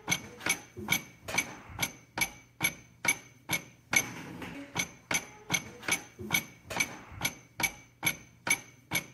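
A Honda motorcycle's clutch with the plates rattling in the basket: a steady metallic clack about twice a second, each with a short ring. The rattle comes from worn clutch plates, whose tabs sit loose in the basket slots and knock against their edges.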